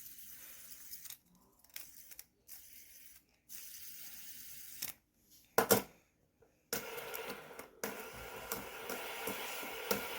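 Clicks and handling of a fidget spinner, then the spinner whirring steadily with a faint hum from its bearing, starting about two thirds of the way in.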